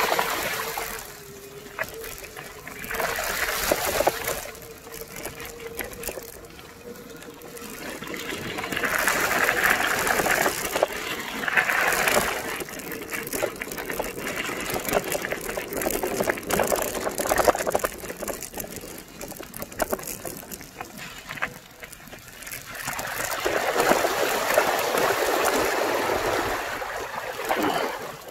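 Bicycle tyres rolling through mud, puddles and wet gravel on a dirt track: a hiss of water spray and wet grit that swells and fades every few seconds, with many small crackles of gravel under the wheels.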